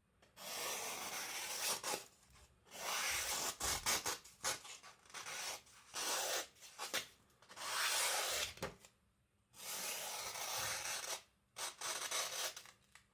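A freshly sharpened 75Cr1 carbon-steel custom EDC knife slicing through paper in a series of about eight rasping cuts, each about a second long with short pauses between. It is a sharpness test, and the tip area catches slightly, a sign of a little burr left there.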